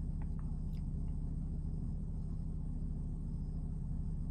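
Steady low hum and rumble inside a car's cabin, with an even low tone held throughout.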